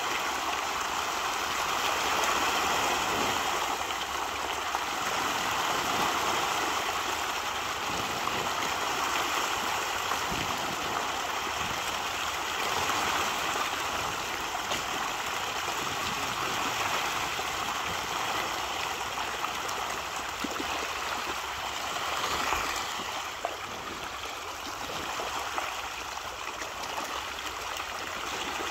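A dense school of fish thrashing and splashing at the water's surface, a continuous churning, gurgling splash like running water, easing slightly about two-thirds of the way through.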